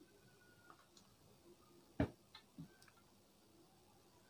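Faint clicks and taps from the opened DVD player's plastic disc clamp and loader mechanism being handled: one sharp click about two seconds in, then a few lighter ones, with a faint thin whine near the start.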